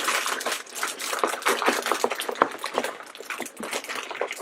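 A hand rummaging through a plastic bin full of packaged blind bags, giving a continuous rustle of many small clicks and crinkles.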